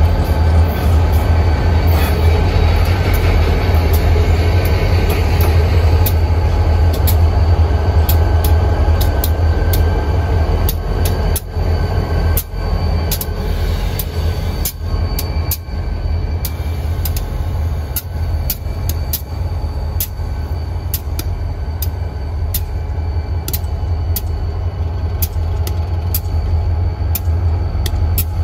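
Wheeling & Lake Erie diesel locomotives passing close by, their engines running with a deep, steady low rumble, with sharp clicks repeating throughout. The sound eases a little after about ten seconds.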